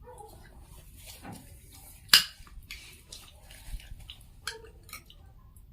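Eating at a table: scattered light clicks and taps of tableware, with one sharper click about two seconds in.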